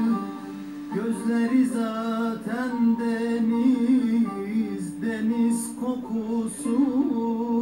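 Music: a Turkish song, a voice singing over plucked string accompaniment.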